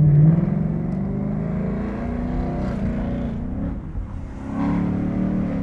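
2020 Mustang's engine accelerating hard through a resonator-deleted H-pipe exhaust with stock mufflers, its note climbing steadily in pitch. There is a brief drop about four seconds in, like a gear change, then it pulls again.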